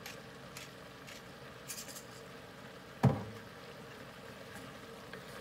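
Hand pepper grinder being twisted, giving a few faint gritty clicks in the first two seconds, then one sharp knock about three seconds in, hard wood or metal against the cast-iron skillet or stovetop.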